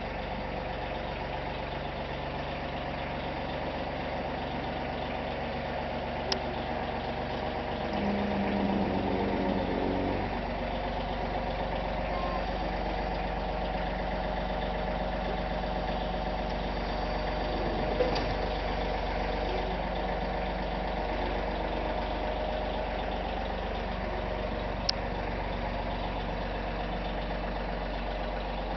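A small John Deere compact tractor's engine running steadily as the tractor moves at low speed. It gets louder for a couple of seconds about eight seconds in, and a few sharp clicks sound over it.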